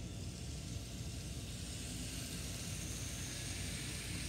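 N scale model train running past on the track, its small electric motor whining and its wheels hissing on the rails, growing louder over the first couple of seconds as it approaches. A steady low hum runs underneath.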